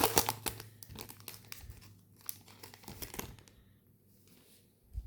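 Foil wrapper of a trading card pack being torn open and crinkled, loudest at the start, with smaller crinkles and clicks that die away after about three seconds.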